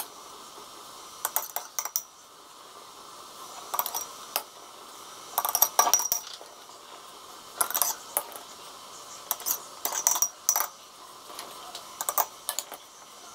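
Metal spoon clinking and tapping against glass jars and a metal bowl while grated black radish is spooned into half-litre jars: about six short clusters of sharp clinks, some with a brief ring, every couple of seconds.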